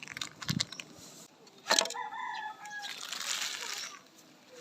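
A chicken giving one short call about two seconds in, just after a sharp knock, followed by a brief rustle.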